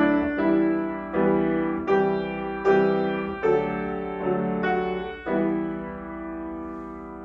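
Grand piano playing a slow hymn, a new chord about every three-quarters of a second. About five seconds in, a closing chord is struck and left to ring, fading away.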